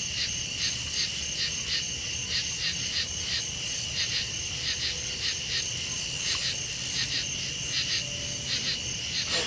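Night insects calling: a steady high-pitched trill under a chorus of short chirps that repeat evenly, a few times a second.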